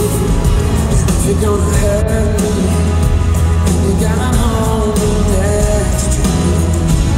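Live pop-rock band playing, with a male lead vocal singing over electric guitars, keyboards and drums, heard through an arena sound system.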